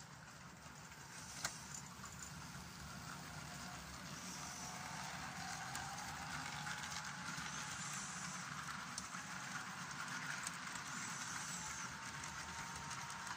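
Model container train running on a layout, its wheels rumbling and clicking along the track and a thin motor whine, growing louder over the first few seconds as the wagons pass close by. A single sharp click about a second and a half in.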